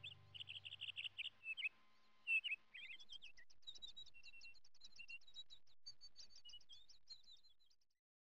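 Birds chirping and twittering: a run of short chirps, then faster, higher twittering, fading out near the end.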